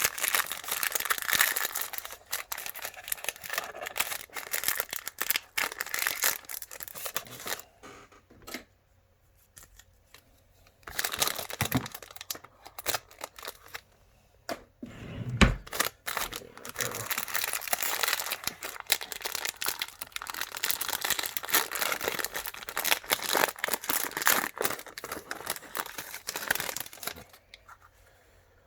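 Trading card packaging being torn open and its wrapper crinkled and rustled by hand, in long bursts broken by two short pauses, with one dull thump about halfway through.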